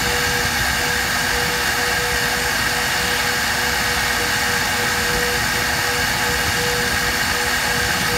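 0.75 kW CNC spindle running steadily at 6000 rpm while a 60° engraving cutter cuts a shallow pattern into a steel die: a constant tone over an even hiss.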